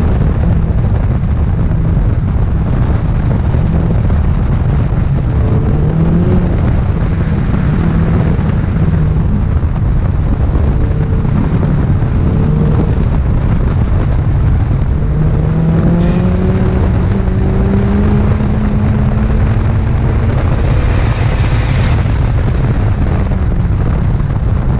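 Mazdaspeed3's turbocharged 2.3-litre four-cylinder engine working hard on an autocross run, its note rising and falling as the car accelerates and slows through the cones. Heavy wind rush buffets the microphone, mounted outside on the car's door.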